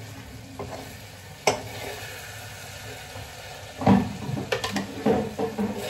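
Onion-tomato masala sizzling in a kadhai while a spoon scrapes and scoops it out. A sharp click comes about one and a half seconds in, and a louder clank of the spoon near four seconds, followed by a few lighter clatters.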